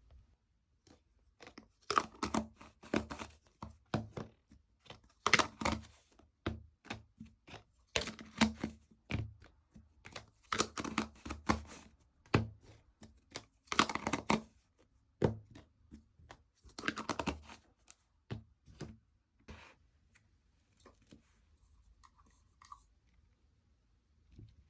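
Slime being stretched and squeezed by hand, in repeated bouts of crackly clicking and popping that thin out near the end.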